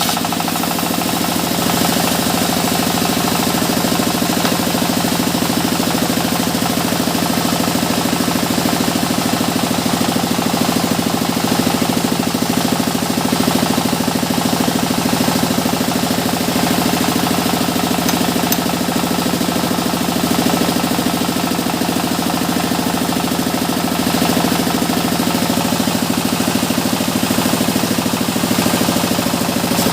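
A sawmill's engine running steadily at an even speed, with a fast, regular knocking pulse.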